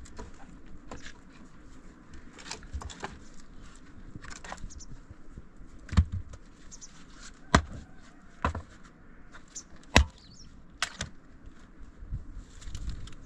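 Irregular knocks and clicks, the loudest about six, seven and a half, and ten seconds in.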